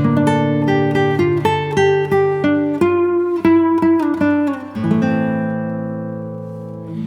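Background music: plucked acoustic guitar picking a melody, ending on a held chord that slowly fades, with a new pluck near the end.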